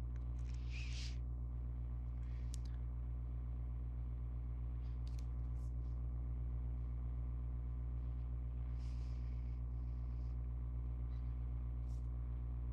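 Steady low electrical hum running under the recording, with a few faint soft hisses and light clicks.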